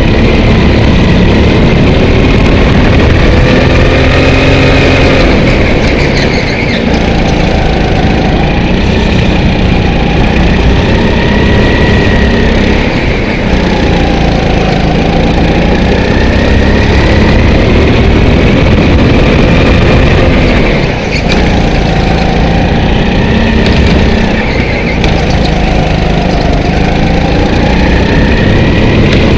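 Go-kart engine running at full load on a lap, its pitch rising and falling over and over as the kart accelerates out of corners and slows into them.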